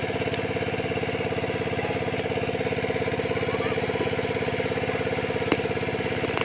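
Small engine-driven water pump running steadily with an even pulse, pumping water out of a pond through its hose. A single sharp click near the end.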